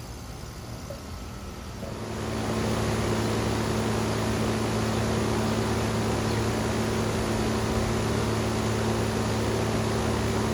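Outdoor air-conditioning condensing unit kicking on about two seconds in, then running with a steady low hum and fan rush.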